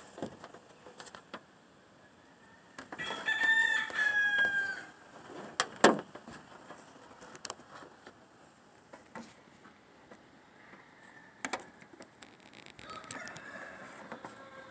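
A rooster crowing: one long call about three seconds in, with a fainter second crow near the end. A few sharp clicks in between, the loudest about six seconds in.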